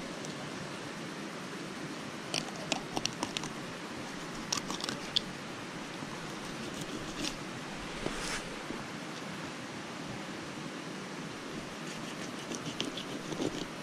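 Fillet knife cutting through a smallmouth bass on a plastic cutting board: short runs of crisp clicks and crunches as the blade works along the bones, with a brief scrape in the middle, over a steady hiss.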